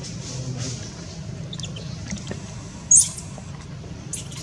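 A single short, high-pitched animal squeak, rising in pitch, about three seconds in, over a steady low background hum. Faint high chirps start near the end.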